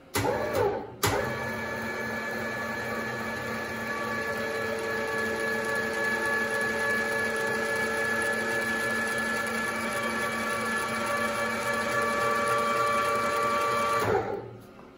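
DoALL surface grinder's motor running steadily with a hum and whine as the wheel head is lowered toward the part. It starts, cuts out for a moment just before a second in, then restarts, and winds down with a falling pitch near the end.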